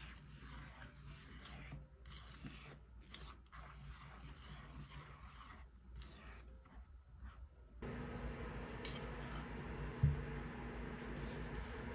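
Silicone spatula stirring and scraping an egg and brown-sugar mixture, the sugar not yet dissolved, in a stainless steel saucepan, in irregular strokes with short pauses. About eight seconds in, this gives way to a steady low hum, with a single knock about two seconds later.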